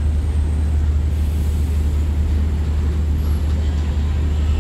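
Heavy diesel engines running steadily, a deep continuous hum with a rumble over it.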